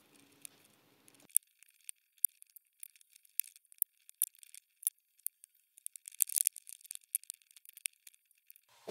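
Small, irregular plastic clicks and taps as the parts of a Nova NHT 1052 beard trimmer's housing are handled and fitted back together, with a denser run of clicks about two thirds of the way through.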